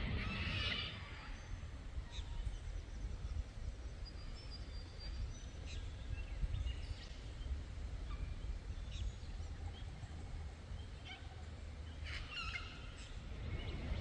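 Laughing kookaburra call ending about a second in, then scattered short calls of other forest birds, and another chattering burst of calls near the end, over a steady low rumble.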